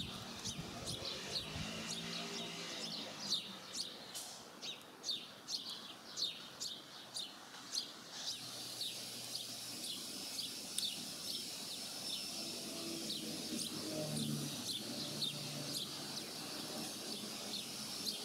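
A small bird chirping over and over, short falling chirps about two a second. A steady high hiss joins about eight seconds in.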